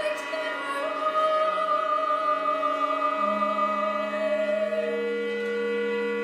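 Soprano singing one long held high note, wavering slightly, over sustained chords from a small chamber ensemble of winds, brass and strings; a low held note enters about halfway through.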